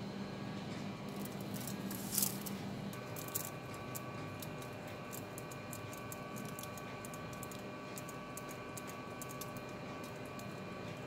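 Faint crackling and sizzling of flux and solder under a soldering iron tip as the pads of a TV panel's source PCB are tinned, over a steady low hum. A brief louder hiss about two seconds in; the hum stops about a second later.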